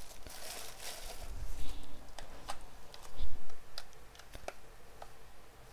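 Handling noise of a small plastic camcorder being picked up and turned over in the hands: scattered light clicks and taps, with a dull thump about three seconds in.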